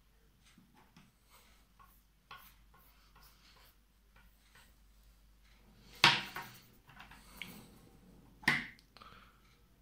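Two sharp knocks about two and a half seconds apart, the first trailed by a few small clatters, over faint scattered clicks: handling noise from the painting work as a hand reaches in.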